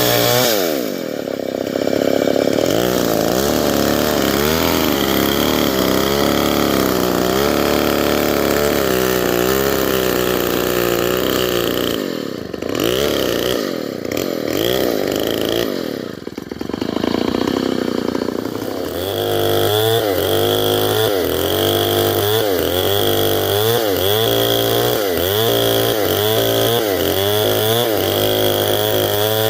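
Stihl 070, a large two-stroke chainsaw, running under load as it rips lengthwise through a log. Its engine pitch wavers up and down, dips briefly twice near the middle, then swings back and forth evenly near the end.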